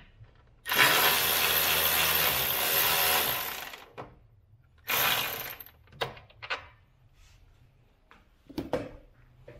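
Cordless electric ratchet running for about three seconds, then again briefly, backing out a 10 mm bolt. A few clinks and knocks of tools follow near the end.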